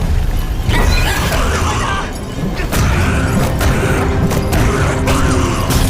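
Drama sound effects: a deep continuous rumble with several sharp crashes and booms in the second half, under background music and a brief shout near the start.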